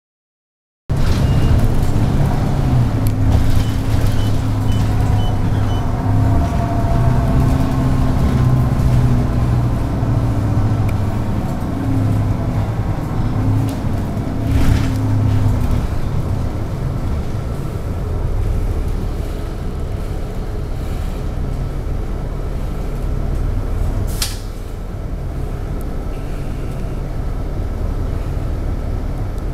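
City bus heard from inside its cabin, engine running as it drives through traffic. The engine note steps up and down with gear changes during the first half, then settles. Two short air-brake hisses come through, the sharper one late on.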